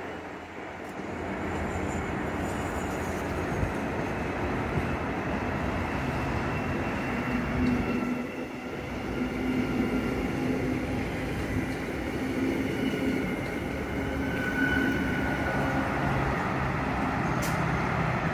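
Transperth electric multiple-unit train running along the station platform: steady rumble of wheels on rail with a level electric whine, growing louder about a second in as it draws close. Two short clicks near the end.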